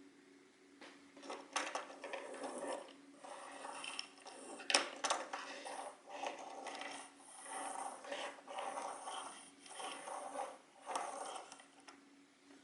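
Handling noise from a small plastic toy on a tabletop: irregular scraping and rustling with a few sharp clicks, the loudest about five seconds in.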